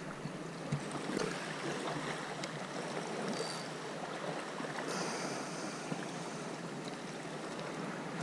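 Small sea waves washing and lapping against shoreline rocks, a steady wash of water, with a few faint short clicks.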